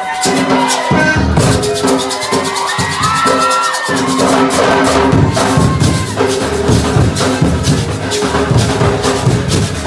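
A children's band playing percussion: shakers in a fast, even rhythm and upright hand drums over held, steady notes. The drumming comes in heavier about four seconds in.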